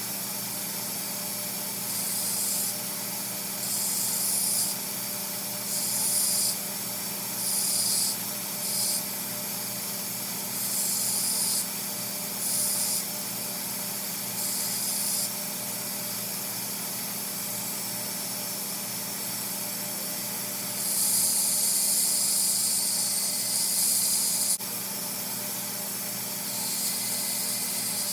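Belt grinder running steadily while a knife blade is pressed to the belt in short passes on a 10-inch contact wheel for a hollow grind, each pass a burst of grinding hiss lasting about a second, with a longer pass near the end.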